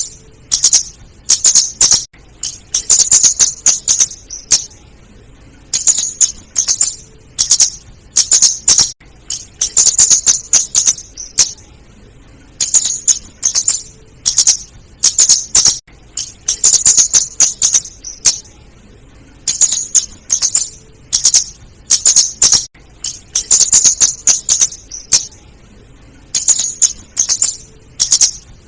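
Female flowerpecker (kemade, cabe-cabean) calling: very high, sharp ticking notes in quick clusters, repeated every second or two with short pauses between runs, as played for a bird-lure recording.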